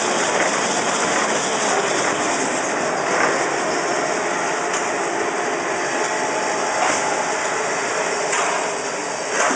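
Manual band saw log cutter for toilet and kitchen paper rolls running as paper logs are fed through the blade: a steady mechanical din with a few faint knocks.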